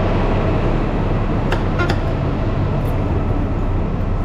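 Steady low rumble of a heavy diesel truck engine idling, with two light clicks about a second and a half in.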